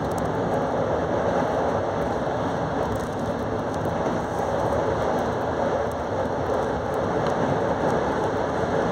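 Passenger train running at speed, a steady rolling rumble of wheels on rails heard from inside the carriage.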